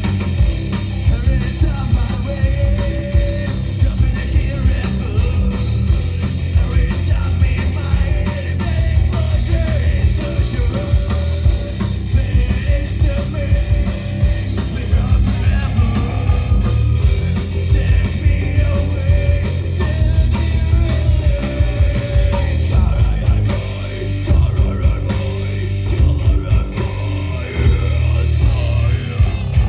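Live metal band playing: distorted electric guitars, bass and fast drum-kit hits, with a held sung or guitar melody line over the top.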